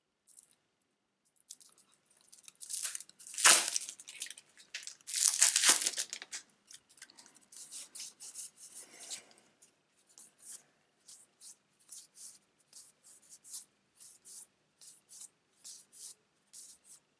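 Plastic shrink-wrap being torn and crinkled off a stack of game cards, with two loud rips a few seconds in. After that the cards are leafed through one at a time, a short light flick about twice a second.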